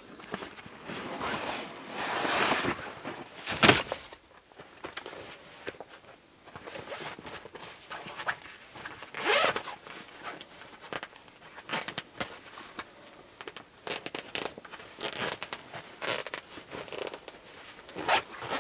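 Canvas duffel bag being handled: rustling as it is brought over, a sharp knock about four seconds in, then its zip worked open in a series of short pulls.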